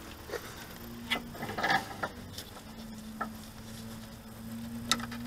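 Scattered light clicks and knocks of hand tools and a suspension drop link being handled, over a faint steady hum.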